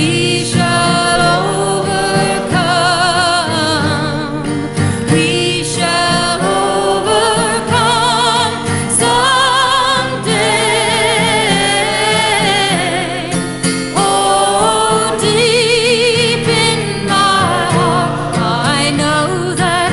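A song laid over the pictures: singing in long, wavering held notes over a steady instrumental backing.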